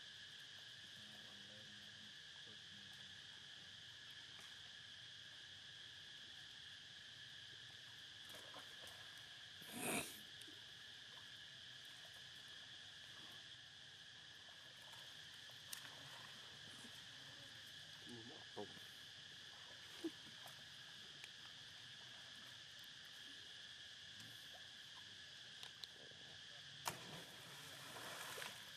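Faint steady drone of insects, two even high tones held throughout, with one brief louder burst of noise about a third of the way in and a few soft ticks later on.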